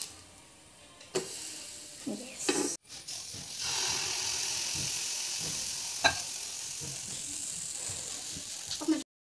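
A plastic spatula knocks and scrapes a few times against a non-stick pan. After a brief break, pancake batter poured onto the hot greased pan sizzles steadily, with one sharp tap about six seconds in.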